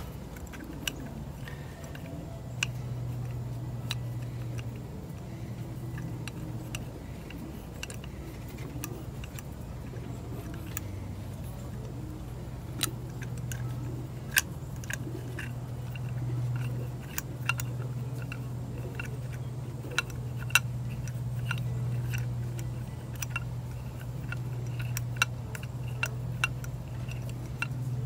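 Small, irregular metal clicks and ticks as the high-speed needle valve of a 1950 Johnson TN-26 outboard carburetor is turned out by hand, the clicks coming more often in the second half, over a steady low hum.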